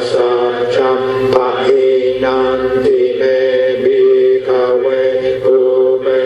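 Buddhist chanting: voices intoning steadily on a few held notes, with short breaks between phrases.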